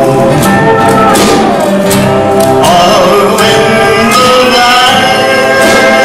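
A man singing a song live into a microphone, accompanying himself on acoustic guitar, with held notes that waver in pitch.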